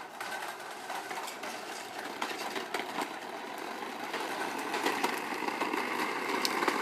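Toy bubble lawn mower's small motor running steadily, with scattered light clicks.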